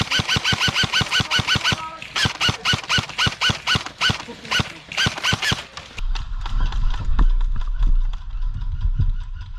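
Airsoft electric gun firing long full-auto bursts: rapid, evenly spaced cracks, each with a short squeaky whine from the gearbox. There is a short break about two seconds in, and the firing stops about six seconds in, leaving a low rumble.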